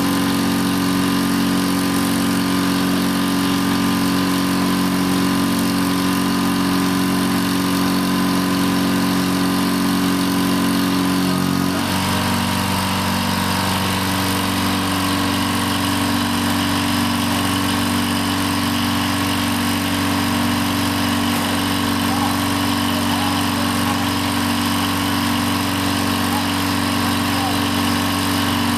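Engine running steadily, driving the hydraulics of a 1993 IMT crane under test. Its note changes abruptly about twelve seconds in, then holds steady.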